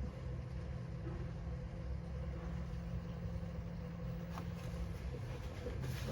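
Washer-dryer combo's drum motor running with a steady low hum as the machine tumbles a single bedspread to find its balance. The load is unbalanced, so it cannot get up to high spin speed. The steady tone drops out about five seconds in.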